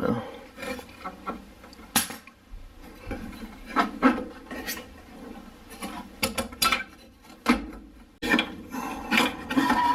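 Scattered metal clicks, knocks and scraping as a furnace inducer motor is worked loose from its sheet-metal housing, its last mounting bolt just undone with a ratchet. The rubbing and clatter grow denser near the end as the motor comes free.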